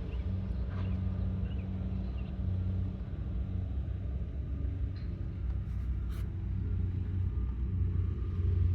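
Oil-fired furnace burner running with a steady low rumble and hum while it burns the fuel oil under test. A single short click comes about six seconds in.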